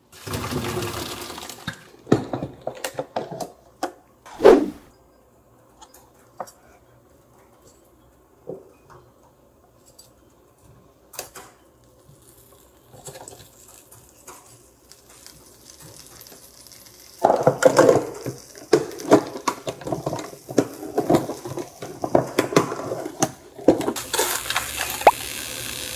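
Kitchen clatter of dishes, pans and utensils being handled and set down, with one loud knock about four seconds in and a busier run of clattering in the second half. Near the end, food starts sizzling in a pan with a steady hiss.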